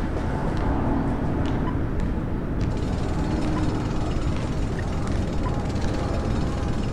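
City street ambience: a steady low rumble of traffic-like noise with a few faint ticks and clicks scattered through it.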